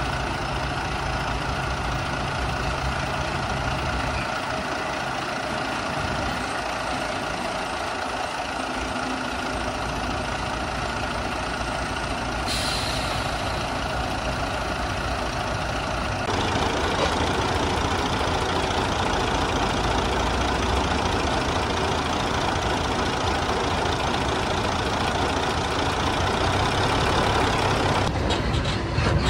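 Diesel engine idling steadily, growing louder about halfway through, with a short hiss about twelve seconds in.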